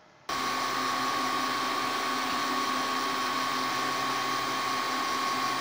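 MakerGear M2 3D printer running mid-print: a steady whir from the print head's cooling fan with a constant whine from its motors, starting abruptly just after the beginning.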